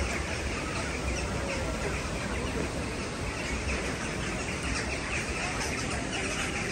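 A flock of birds chirping continuously, many short overlapping calls, over a low uneven rumble of wind on the microphone.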